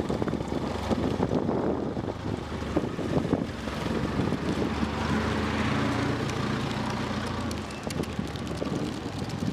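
Propane-fuelled Hyster forklift's engine running steadily as it drives and turns, its low hum strengthening about halfway through, with wind buffeting the microphone.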